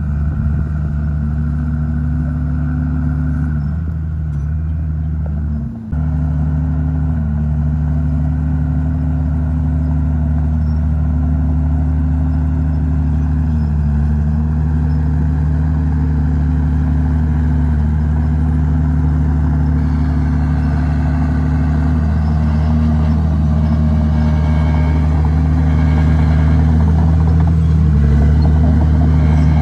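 Komatsu D51PX bulldozer's diesel engine running under load, its note sagging and recovering every few seconds as the blade pushes dirt. The sound drops briefly about six seconds in, and a harsher, busier layer joins from about two-thirds of the way through.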